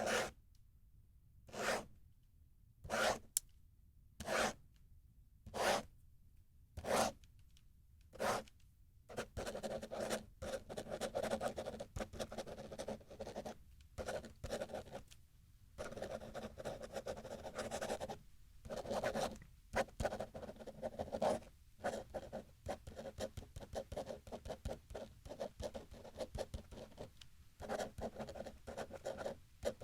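Ballpoint pen writing and drawing: first a series of separate long strokes, about one every second and a half, then from about nine seconds in a steady run of quick scribbling strokes with brief pauses.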